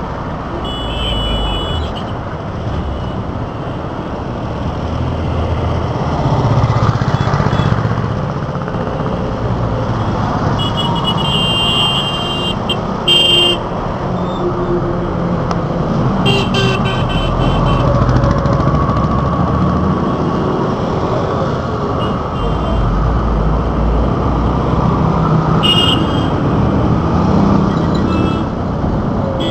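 Busy city road traffic heard from a moving vehicle: a steady rumble of engines and tyres, with short vehicle-horn honks about a second in, a cluster of them in the middle, and another near the end.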